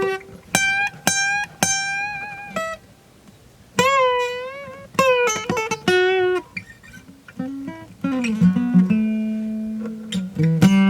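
Guitar played note by note: plucked single notes that ring and fade, a few of them bent in pitch, with a short pause about three seconds in and lower notes held near the end.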